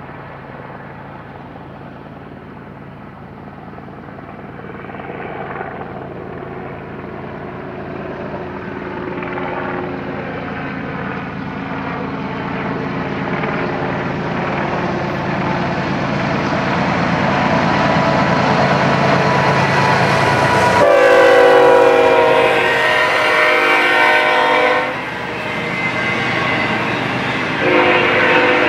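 BNSF diesel locomotives hauling a double-stack intermodal train approach, their engine drone growing steadily louder. About three-quarters of the way through, the multi-tone air horn sounds one long blast of about four seconds, and it sounds again near the end as the locomotives pass and the container cars start rolling by.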